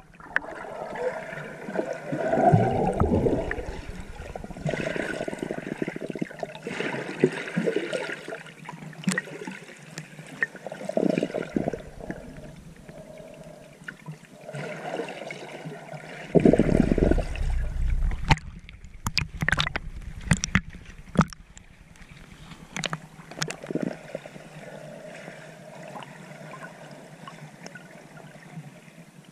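Muffled water noise and bubbling heard through an underwater camera housing as a snorkeler swims, with two louder rushing surges of water against the housing and a quick run of sharp clicks about two-thirds of the way through.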